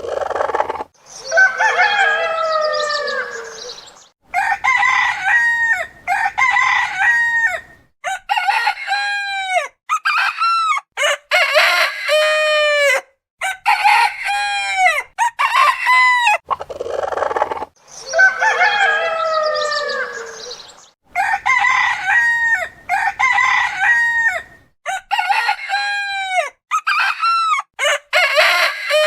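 Roosters crowing one after another, about fifteen crows cut tightly together with abrupt breaks between them. The same long crow from near the start comes round again about two-thirds of the way through.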